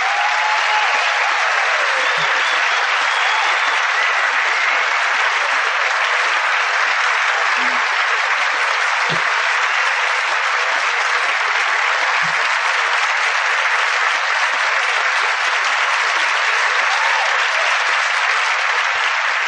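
Large banquet audience applauding, a dense and steady clapping that holds at an even level throughout.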